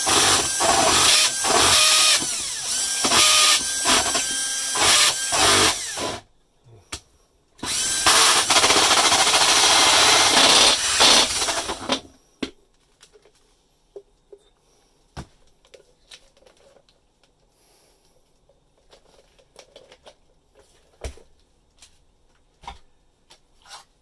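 Cordless drill driver in low gear spinning a Panasonic adjustable universal hole saw through gypsum board, a loud scraping whir. It runs for about six seconds, pauses for about a second and a half, runs again for about four seconds, then stops, leaving only a few faint clicks and knocks.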